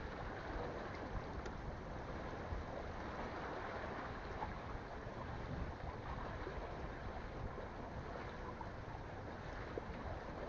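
Steady outdoor sea ambience: wind and water noise with no clear pitch, and a few faint ticks.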